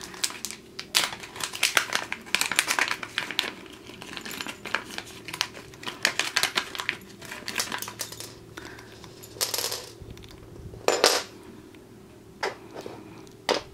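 A small plastic bag of drone accessory parts being handled and opened, with rustling and the small plastic and metal parts clicking and clattering onto a wooden table in scattered bursts. The loudest clatter comes about eleven seconds in.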